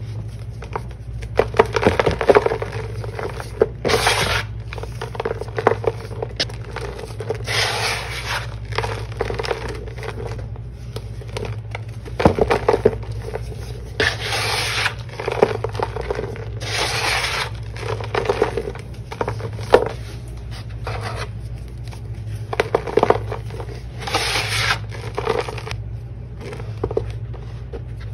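Dried slabs of Ajax and Tydbol cleaning powder crushed and crumbled by hand in a plastic tub. Repeated gritty crunching and scraping bursts come every second or two, with sharp crackles, over a steady low hum.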